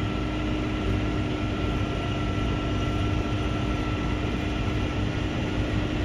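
Tractor engine and cab running steadily, heard from inside the cab while drilling: a constant low drone with a faint steady whine above it.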